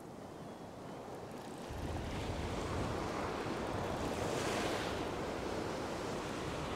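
Ocean surf breaking and washing up the sand, swelling about two seconds in and loudest a little past the middle.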